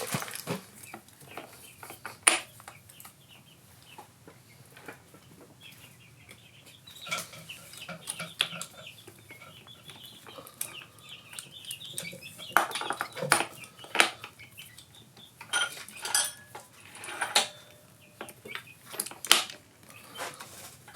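Hand tools clinking and knocking on metal as a wrench and socket work the tight clutch lock nut of a motorcycle engine: a scattered series of sharp metal clanks, several loud ones in the second half.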